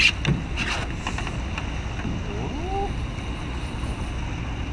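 Steady low rumble of wind on the microphone and a small boat on the water, with a few sharp clicks in the first second and a brief voice sound about halfway through.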